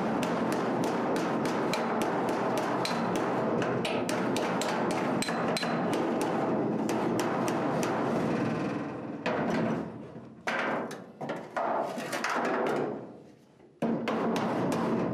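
Steel body hammer striking a sheet-metal edge of a 1966 Mustang body, backed by a dolly, to fold the edge over to an angle. Rapid, even blows about four a second, then a few slower, scattered blows with pauses in the last several seconds.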